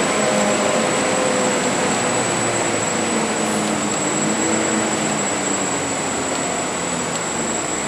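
Cabin noise of a Volvo B10BLE CNG single-deck bus on the move: its engine running under way with road and tyre noise, the engine pitch wavering slowly, and a faint steady high-pitched whine throughout.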